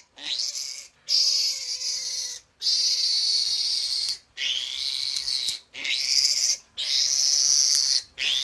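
Newborn piglet squealing over and over, about seven long high-pitched screams with short breaks between them, as its needle teeth are clipped.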